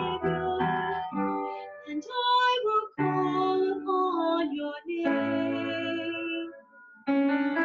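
A woman singing a worship song with keyboard accompaniment. The music breaks off briefly about seven seconds in and then resumes.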